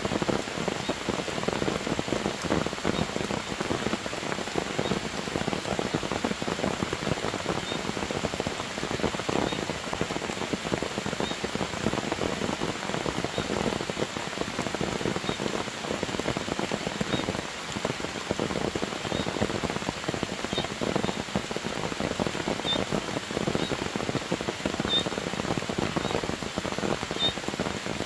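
Heavy rain falling steadily on dense grass and leaves, an even, unbroken patter. Faint short high chirps repeat about once a second from the middle on, coming more often near the end.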